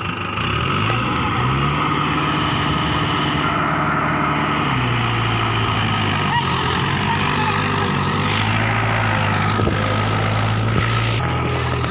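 Mahindra 575 DI tractor's four-cylinder diesel engine running steadily, revving up about a second in and settling to a lower speed about five seconds in.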